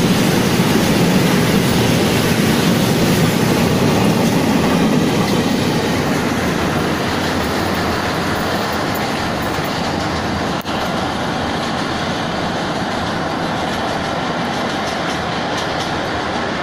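Freight train of rail tank wagons running past, its wheels clattering over the rail joints; the noise eases somewhat after the last wagons go by and the train pulls away.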